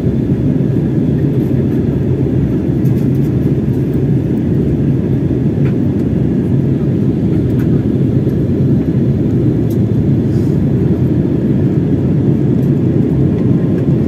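Steady in-flight cabin drone of an Airbus A320, engine and airflow noise heard from inside the cabin, deep and even throughout.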